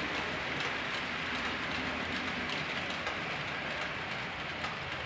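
HO-scale model train running on the layout's track: a steady rolling hiss of metal wheels on the rails with faint scattered ticking.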